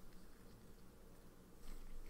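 Quiet room tone. Near the end comes a soft rustle of hands moving over paper ink-swatch cards on a tabletop.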